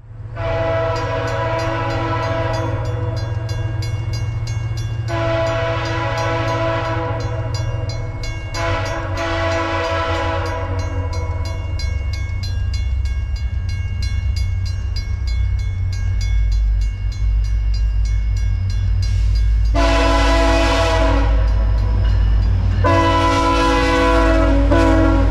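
VIA Rail F40PH-2 diesel locomotive sounding its multi-note air horn in a series of long blasts with gaps between, over the rumble of the approaching train. The deep engine rumble grows louder over the second half as the locomotives come close and pass.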